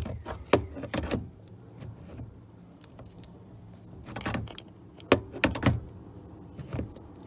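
Scattered light clicks and knocks of hands working airbag wiring through a replacement steering wheel, some in quick clusters, over a faint steady high whine.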